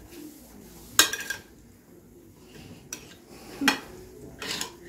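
Metal spoon clinking against a ceramic bowl while mixing a salad: a few sharp, scattered clinks, the loudest about a second in.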